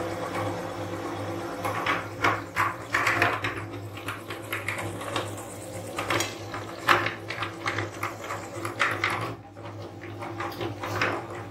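Belt-driven meat grinder running with a steady hum. From about two seconds in until about nine seconds in, a run of irregular clicks and knocks sounds as sugar-coated tube candies are fed through its auger.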